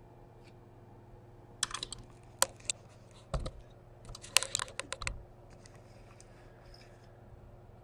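A quick run of sharp clicks and taps for about three and a half seconds, with two dull thumps among them, over a steady low hum.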